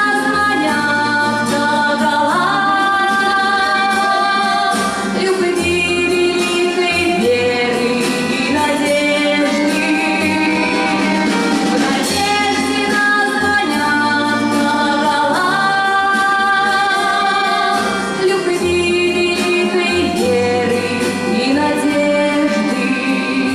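Music: a slow song with instrumental accompaniment, a melody moving in long held notes over a low bass line.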